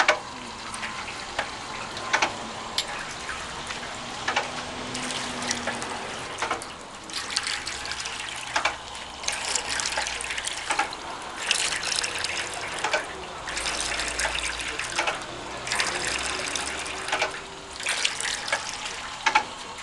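A Tokai Kikai NEW HOPE MT-50 mortar pump, run on water, pushing water out with sharp clicks and knocks. From about eight seconds in, the flow comes in gushing surges roughly every two seconds.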